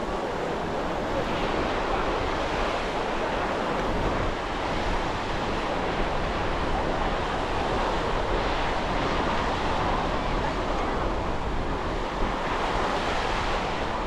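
Surf washing onto a sandy beach as a steady, even rush of breaking waves, with wind buffeting the microphone.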